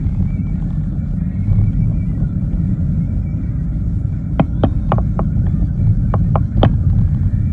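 Steady low road-and-engine rumble of a moving car heard from inside the cabin, with a handful of sharp clicks in two quick clusters a little after the midpoint.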